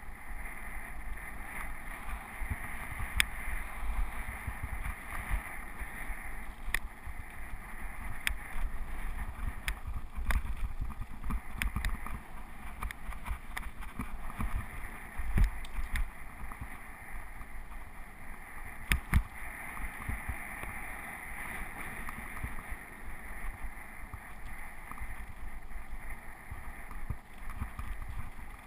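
Mountain bike riding over a rough gravel track: a steady rumble of tyres and wind buffeting the microphone, broken by sharp knocks and clatters as the bike hits bumps, the loudest about halfway through and again a few seconds later.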